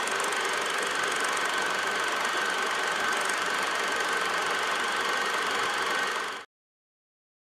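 Film projector running steadily, a mechanical whirr with a thin high whine through it, cutting off suddenly about six and a half seconds in.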